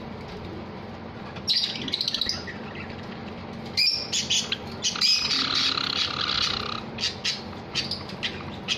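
Caged Java sparrows chirping: short bursts of high chirps starting about a second and a half in, a livelier run of chirping with a held note from about four seconds, then scattered single chirps near the end.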